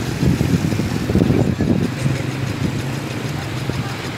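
Motorbike engines running steadily as scooters wade through floodwater on the street.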